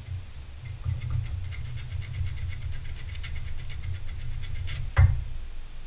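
Small hand file scraping in quick, light strokes over the edge of a small metal washer held in the fingers, deburring it: an even run of ticks about five a second. A single sharp knock about five seconds in is the loudest sound.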